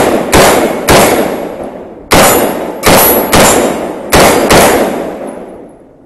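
MGS Firearms Citizen Rifle, an AR-15-style semi-automatic rifle, firing about seven single shots at an uneven pace, each with a decaying echo. Faint metallic pings follow some shots as the steel targets are hit.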